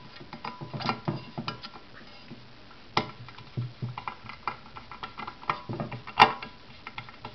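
Small metal parts of a Yamaha XS650 clutch worm mechanism and a flat-blade screwdriver clicking and tapping as they are handled and fitted, in scattered irregular clicks with a sharper knock about three seconds in and the loudest about six seconds in.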